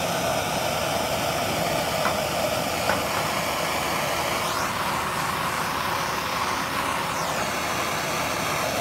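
Plumber's gas blowtorch burning, the flame giving a steady rushing noise, with two faint clicks about two and three seconds in.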